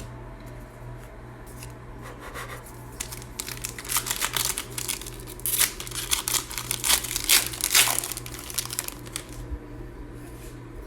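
A foil or plastic trading card pack wrapper being torn open and crinkled by hand, a run of crackling that starts about two seconds in and grows busiest in the middle before dying away, over a steady low electrical hum.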